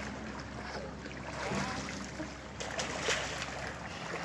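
Brown bear cub splashing and sloshing about in a pool of water, with a few sharper splashes about three seconds in.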